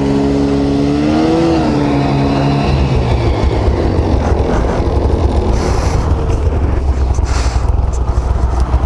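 Two-stroke snowmobile engine running, its pitch rising briefly about a second and a half in. From about three seconds in, a loud, uneven low rumble takes over.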